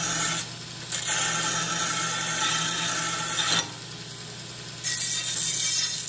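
A G1015 knife-blade belt sander/buffer runs with a steady motor hum while a flat steel bar is ground against its belt. There are three grinding passes: a short one at the start, a long one of about two and a half seconds, and a shorter one near the end. Between them only the motor hum is heard.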